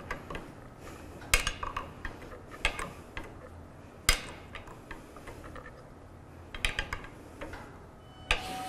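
Sharp metallic clicks and knocks, roughly every second and a half with a quicker cluster later, as a long-handled wrench is worked back and forth on a joint of a 1980s KUKA industrial robot arm, over a low steady hum. A louder rush of noise comes in near the end.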